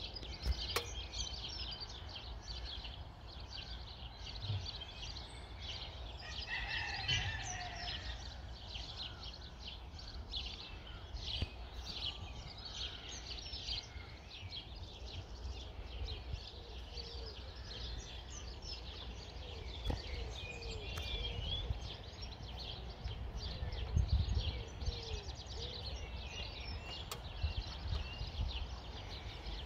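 Several wild birds chirping and singing in short, overlapping phrases, over a low, uneven rumble.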